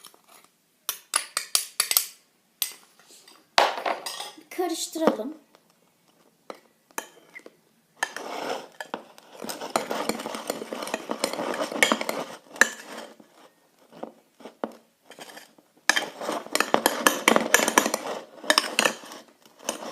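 A tablespoon stirring and scraping around a bowl, mixing powdered sugar into slime. A few taps of the spoon first, then two long spells of steady scraping.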